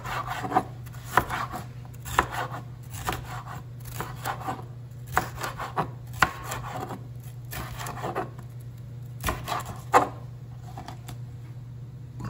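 Chef's knife slicing a red bell pepper into strips on a plastic cutting board: irregular knocks of the blade against the board, which stop about ten seconds in.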